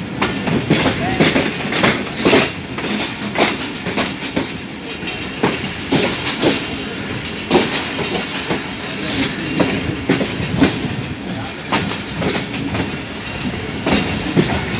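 A moving passenger train's wheels clattering irregularly over rail joints and the points of a station yard, a few sharp clacks a second over a steady rumble.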